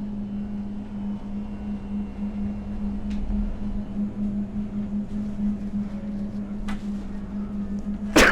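A steady low hum with a slow pulse, with a few faint clicks. Near the end comes one short, loud fake sneeze, a man's forced "achoo".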